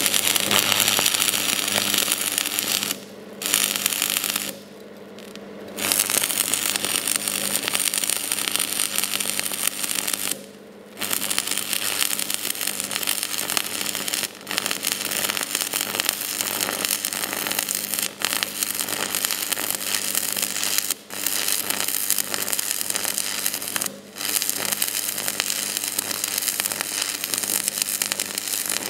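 Stick-welding arc from a budget transformer welder crackling and sizzling steadily. It cuts out suddenly several times, the longest gap about a second, as the arc goes out on this underpowered machine.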